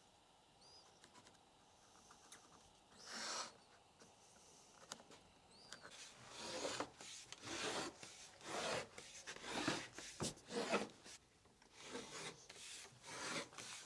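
A marking gauge scraping along a wooden board, scribing lines. One stroke comes about three seconds in, then a quick run of strokes, about one and a half a second, from about six seconds on.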